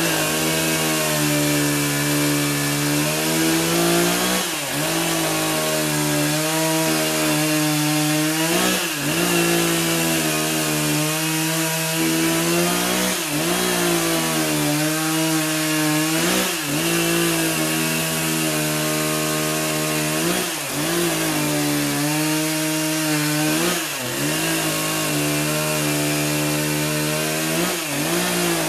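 Echo CS590 Timber Wolf two-stroke chainsaw with a 20-inch bar cutting through a log at full throttle. The engine note holds steady while it is in the wood, then dips briefly and picks up again every few seconds as cut follows cut.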